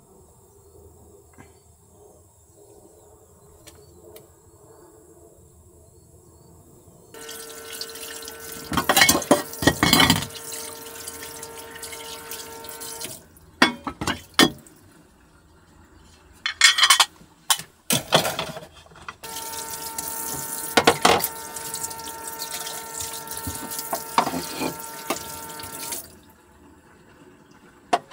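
Water running from a tap into a small sink in two stretches of several seconds each, with dishes clattering and clinking against each other as they are washed.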